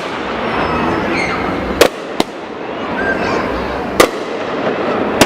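Fireworks going off in a street: sharp loud bangs about two seconds in, another just after, one around four seconds and one at the end, over continuous crackling of firecrackers.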